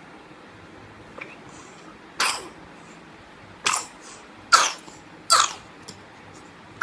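A young boy coughing, four short coughs a second or so apart, from a cough he has come down with.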